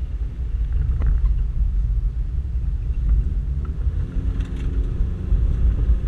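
Toyota Land Cruiser 120 rally car driving hard over a rough dirt track, heard from inside the cabin: a heavy, steady low rumble of engine and running gear, with a faint knock about a second in.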